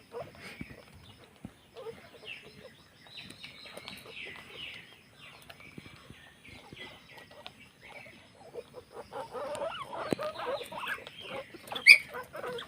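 Guinea pigs squeaking: a run of short, high, repeated squeaks through the middle, then lower calls in the last few seconds. A sharp click comes shortly before the end.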